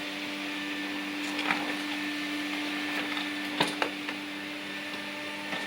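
A vacuum cleaner running steadily, a humming motor over a rushing hiss, with a few light clicks or knocks: one about a second and a half in and two close together a little past halfway.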